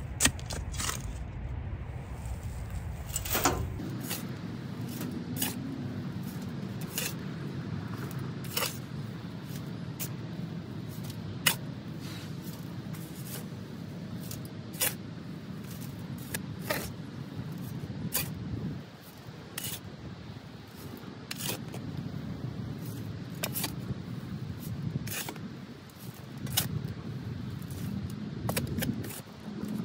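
Shovel digging into loose garden soil, its blade scraping and striking, with shovelfuls of dirt tossed into a wheelbarrow: irregular sharp scrapes and knocks every second or two.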